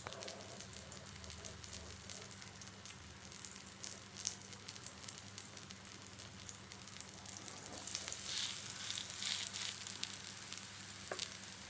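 Potato cutlets shallow-frying in a little oil in an iron pan: a steady sizzle with many small crackles and pops, a little louder from about eight seconds in.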